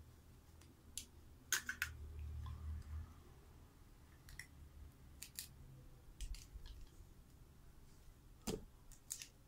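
Plastic toy-food pieces clicking and tapping against each other as they are handled, in scattered sharp clicks with a quick cluster of three about a second and a half in and a duller knock near the end.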